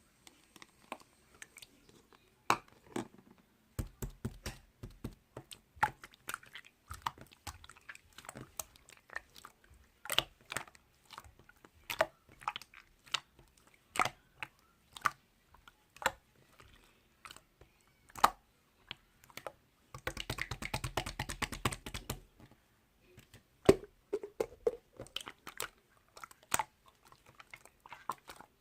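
Slime being squished and poked by hand, making irregular wet pops and clicks, with a fast run of crackling pops about twenty seconds in.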